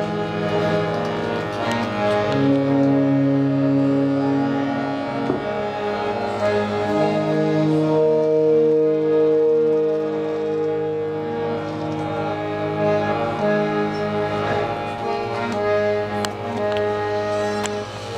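Live band playing slow music of long held notes that change every few seconds over a steady low drone, with a bow drawn across a small stringed instrument among them.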